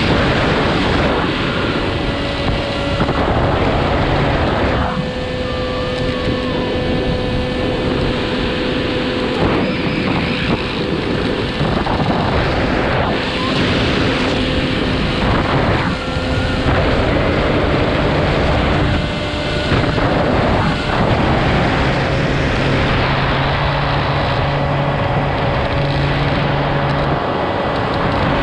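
Wind rushing over the microphone of a camera riding on a model aircraft, mixed with the steady hum of its motor and propeller, whose pitch shifts a few times.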